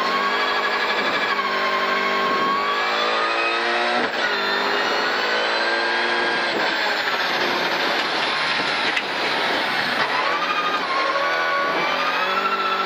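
Rally car's engine heard from inside the cockpit, pulling hard at full throttle with rising revs. It shifts up from second to third about four seconds in, then eases off briefly and pulls again near the end.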